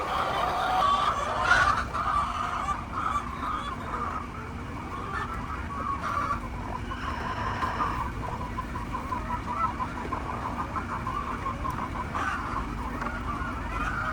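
A flock of Egyptian laying hens clucking, many birds calling over one another without a break.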